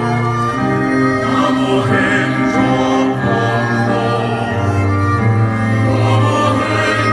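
Slow music of choir voices and bowed strings, long held notes changing every second or two.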